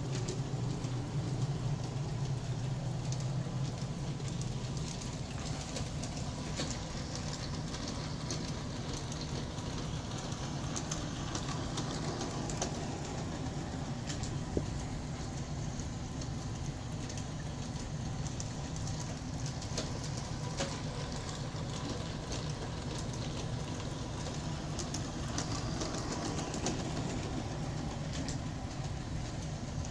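Large-scale (G-scale) Aristo-Craft model train running on brass track: a steady electric motor hum with the wheels clicking over the rail joints.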